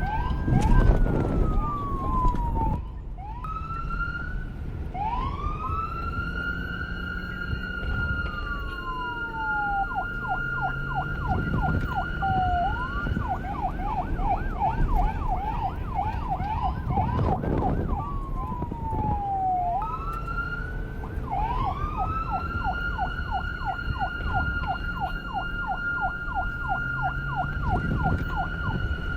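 Police car siren cycling through its patterns: a long wail that rises, holds a high tone and falls away, alternating with a fast yelp of about five sweeps a second, repeated twice, over a steady low rumble.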